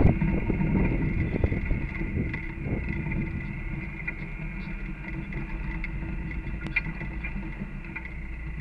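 Off-road 4x4's engine running steadily at low speed as it crawls up a rough dirt trail, with scattered clicks and knocks from the bumps. It is loudest in the first second, then settles lower.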